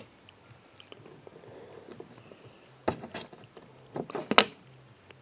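Steel chainsaw chain links clicking and clinking as they are handled. There is a short cluster of sharp clicks about three seconds in and another about four seconds in.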